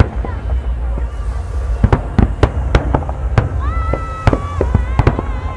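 Fireworks going off: a fast, irregular series of sharp bangs over a steady low rumble. A high, slightly wavering tone is held for nearly two seconds past the middle.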